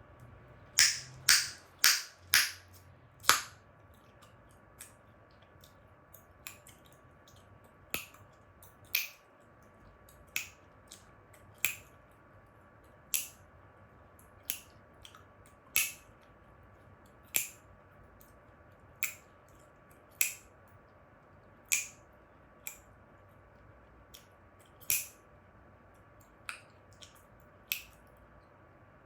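Chewing gum being snapped and cracked in the mouth: sharp pops, five in quick succession at the start, then a snap about every second and a half with a few fainter cracks between.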